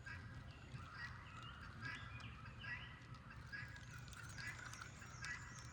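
Faint background birdsong: many short chirps and calls, over a low steady rumble.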